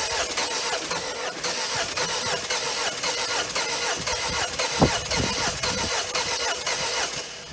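2016 Peugeot Partner's turbo-diesel engine cranking on the starter motor in a fast, even rhythm without catching. Near the end the cranking stops suddenly as the starter cuts out on the key by itself.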